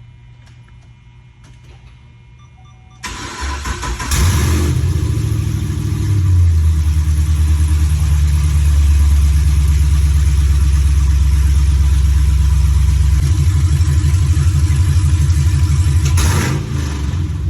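Chevrolet Camaro SS's 6.2-litre V8 cranking and starting about three seconds in, flaring up, then settling into a loud, uneven, lumpy idle. It runs uncorked, straight out of open long-tube headers with no exhaust pipes fitted. The level drops a little near the end.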